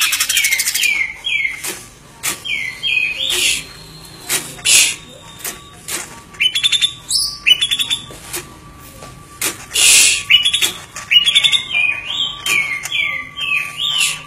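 A songbird chirping in short, downward-slurred notes that come in quick groups of two to four, with sharp clicks between them. A fast chattering trill fades out about a second in.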